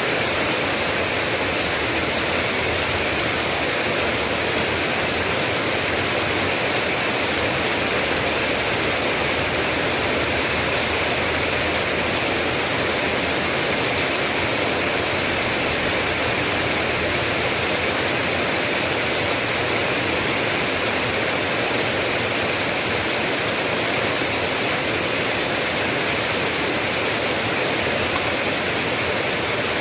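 Steady heavy rain: a constant, even hiss with no single drops, thunder or other events standing out.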